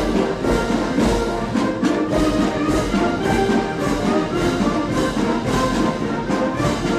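Military massed band playing a march: brass over a steady drum beat of about two beats a second.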